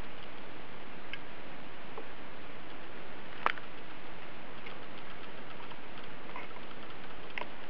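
Steady hiss with a few faint, scattered light clicks, the sharpest about halfway through, as food coloring is being added to the tub of water.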